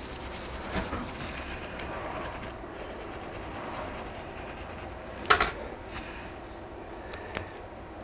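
Light scraping and handling noise from cleaning a Dell XPS 13 9350 laptop's cooling fan, with a sharp click about five seconds in and a lighter one about two seconds later.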